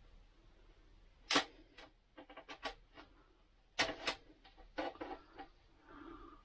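Plastic ceiling vent grilles of a motorhome air-conditioning duct being pried and popped off with a small screwdriver or knife: a string of irregular sharp plastic clicks and snaps, the loudest about a second in and about four seconds in.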